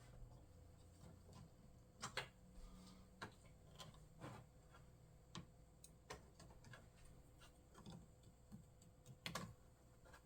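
Faint, scattered small clicks and taps, with a slightly louder click about two seconds in and another near the end: hands working a cable plug and plastic parts inside an all-in-one desktop computer.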